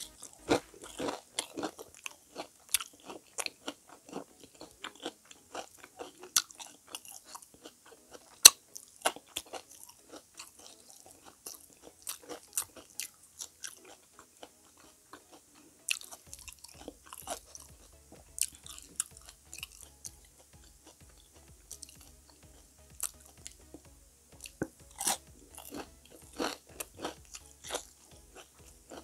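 Close-up crunching and chewing of crispy deep-fried squash okoy fritters, with many sharp, irregular crunches as pieces are bitten and chewed.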